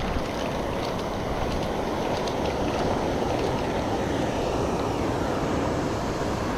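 Steady rushing of a river waterfall: an even wash of falling water, strongest in the low range, with a few faint ticks in the first couple of seconds.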